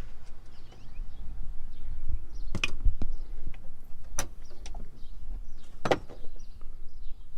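A few sharp metallic clicks and knocks from hand tools backing out the seat bolts, with a low rumble underneath.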